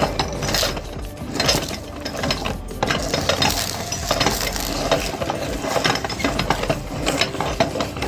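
Meat grinder running and crushing ice cream cones: a dense, continuous crackle of crunching over a steady low motor hum.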